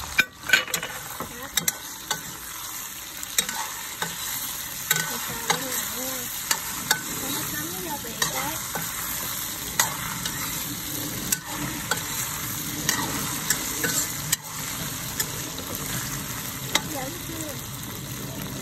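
Giant freshwater prawns and garlic sizzling in a hot wok while a metal spoon stirs and scrapes them, clicking against the pan at irregular moments, loudest about half a second in.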